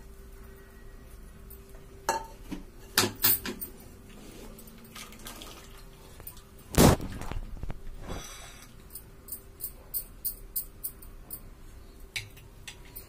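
Stainless-steel pan, wooden spatula and mesh strainer clattering as boiled noodles are scraped out of the pan into the strainer: scattered clicks and scrapes, one loud metal clank about seven seconds in, then a run of light taps, about two a second, near the end.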